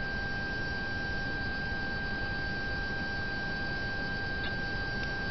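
Tormek sharpener's small motor running, a steady high-pitched whine over a low hum, while a knife blade is stropped on its leather honing wheel to take off the burr (wire edge).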